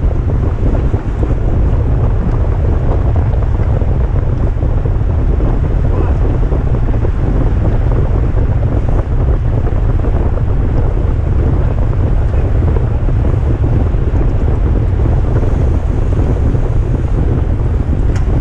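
Wind buffeting the microphone of a camera on a bicycle moving at racing speed: a loud, steady low rumble.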